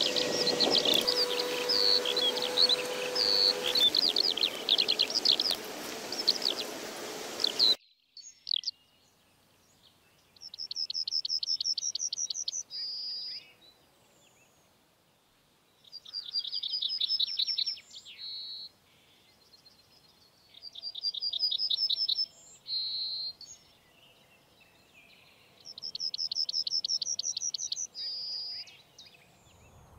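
Birdsong. At first a busy chorus of chirping birds over a background hiss. After a sudden cut about eight seconds in, a single songbird repeats one phrase about every five seconds, a quick run of repeated high notes ending in a short held note.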